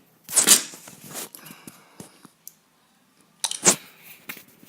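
Handling noise: rustling, scraping and knocks as the recording camera is turned around and a phone is set down on a wireless charging pad. It comes in two loud bouts about three seconds apart, with small clicks between them.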